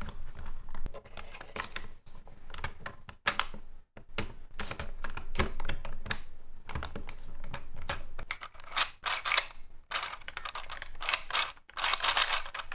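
Hands working on a plastic toy belt's housing and parts: an irregular run of small clicks, taps and short scraping rustles, broken by a momentary gap about four seconds in.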